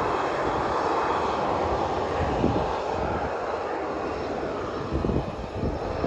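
Boeing 737 jet engines running loud as the airliner rolls along the runway, a steady rushing roar that eases slightly in the last seconds. Gusty wind buffets the microphone with low rumbles underneath.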